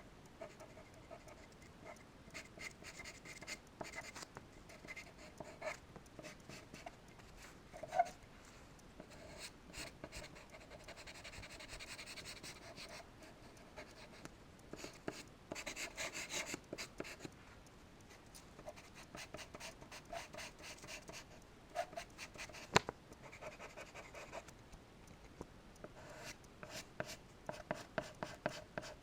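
Stick charcoal scratching across paper in quick drawing strokes, with a stretch of softer, steady rubbing about a third of the way in, as when blending. Two sharp clicks stand out, one about a quarter of the way in and one past the three-quarter mark.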